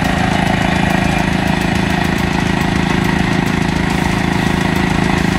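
ATV engine idling steadily.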